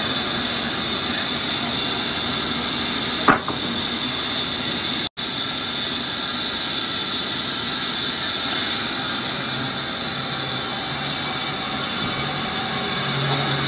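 Large wood-cutting band saw running with a steady hissing rush as a thick wooden slab is pushed through it. The sound cuts out for an instant about five seconds in.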